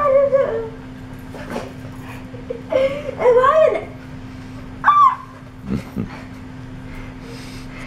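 A boy's high-pitched squealing: a few wavering cries over the first five seconds, the last one short. It is the sound he makes when he is stressed, which the service dog is trained to answer.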